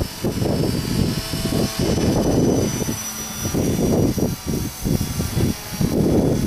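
Gusty wind buffeting the microphone in uneven surges, over the faint high, steady whine of an E-sky Belt CP electric RC helicopter in flight.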